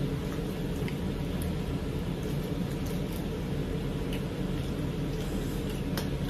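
Steady low room rumble, with a few faint clicks and soft squishing sounds of people eating with their hands from plates.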